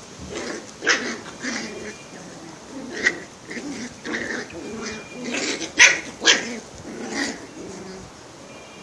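Puppies play-fighting, giving a string of short, sharp barks and yelps, the loudest two close together about six seconds in.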